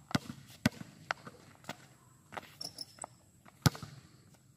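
Basketball bouncing on a concrete court: sharp bounces about every half second for the first two seconds, then a pause and one louder hit about three and a half seconds in.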